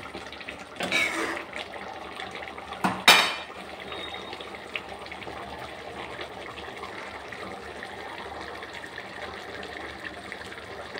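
Thick tamarind gravy (sundakkai vatha kuzhambu) bubbling and popping in a nonstick pan. A ladle scrapes through it about a second in and knocks sharply against the pan about three seconds in, the loudest sound.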